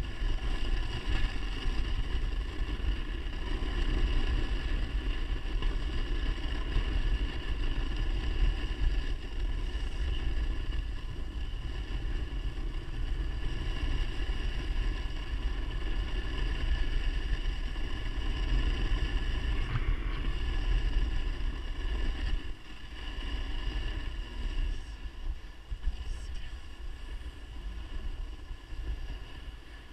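Wind buffeting the camera microphone in a steady low rumble, over the rough scrape of a snowboard's edge skidding slowly across hard, icy snow crust, barely holding. The rumble eases a little about three-quarters of the way through.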